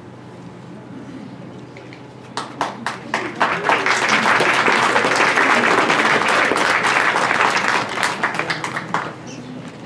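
Audience applauding: scattered claps start about two and a half seconds in, swell into steady applause, and die away near the end.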